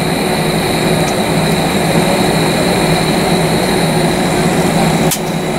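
Steady jet-engine noise inside the cabin of an Airbus A319 airliner rolling on the ground, a low hum with a high whine over it. A brief click about five seconds in.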